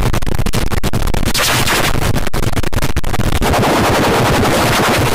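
Harsh, heavily distorted electronic noise from audio-effect processing, a dense loud crackle with rapid sharp clicks and no clear words.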